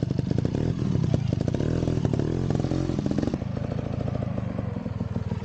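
Trials motorcycle engine blipping and revving unevenly, then dropping back to a quieter, steadier running about three seconds in.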